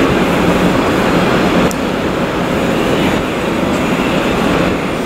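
Airbus A350-900's Rolls-Royce Trent XWB jet engines running at low taxi thrust as the airliner rolls past, a steady rumble.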